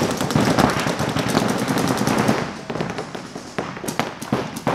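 Paintball markers firing in rapid strings, several at once in a fast dense rattle for the first half, then thinning to scattered shots and short bursts.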